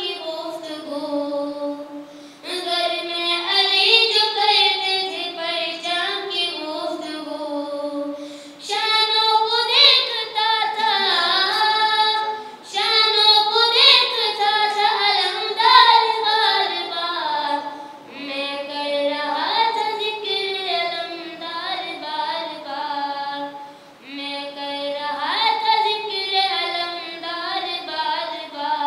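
A boy singing a manqabat solo, with no instruments, in long wavering phrases with short pauses for breath between them.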